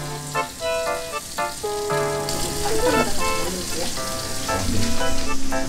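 Light, bouncy background music with a picked melody, over the hiss of running water that grows louder about two seconds in.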